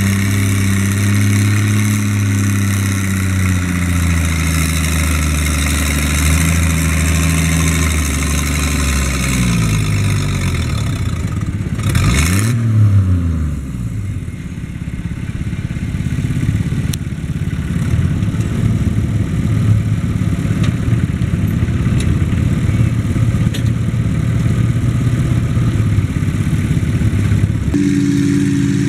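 Oliver Super 88 tractor's six-cylinder engine running under load as it pulls a weighted sled. Its pitch rises and falls around the middle, then settles lower and steady. Near the end a different tractor engine is heard.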